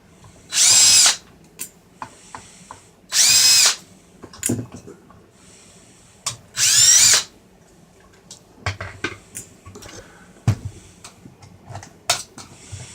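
Cordless power screwdriver run in three short bursts, its motor whining up and back down each time as it backs out the screws holding the radio's trim panel. Light clicks and knocks of the screws and plastic parts being handled follow.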